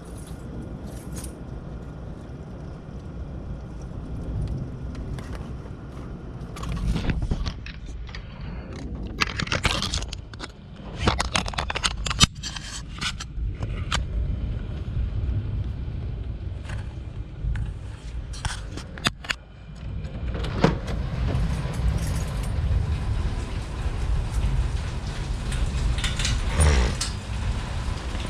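Thunderstorm wind buffeting the microphone as a low rumble, with a run of clicks and rattles from the camera being handled in the middle. From about twenty seconds in, a steady hiss of rain.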